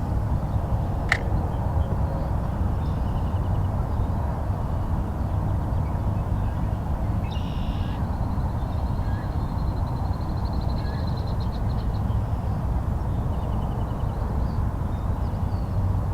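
Steady low rushing outdoor noise, with a few bird calls over it: a harsh call about seven seconds in, followed by a fast ticking trill.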